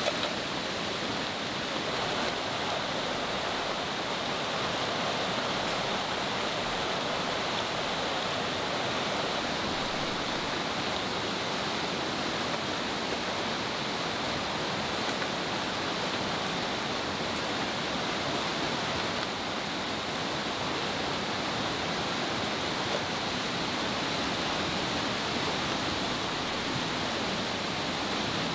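Steady rushing of a swollen, fast-flowing river in flood.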